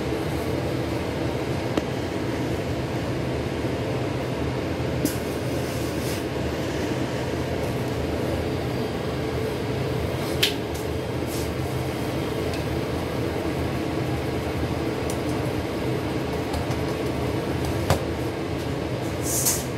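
Steady hum of commercial kitchen machinery, with a few light clicks and a short hiss right at the end.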